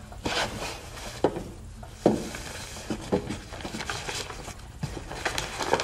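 Scattered light knocks and clicks over a low steady background hum, a handful spaced irregularly and then coming thicker near the end.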